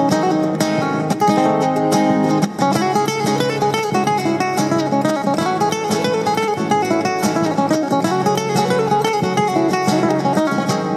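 Background music: an acoustic guitar playing quick plucked notes, with a brief dip about two and a half seconds in.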